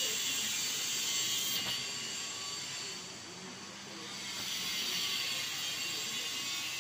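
Steady rushing hiss of background noise, easing off briefly around the middle and then returning.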